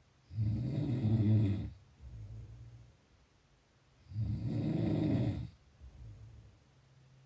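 A person snoring: two loud snores about four seconds apart, each followed by a softer breath.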